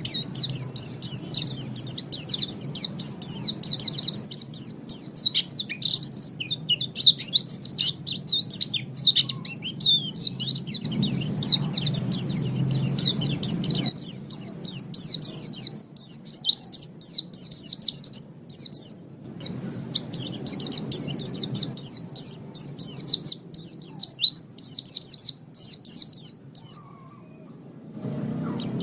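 White-eye (pleci) singing: long runs of rapid, high twittering notes, broken by a few short pauses, over a faint low background hum.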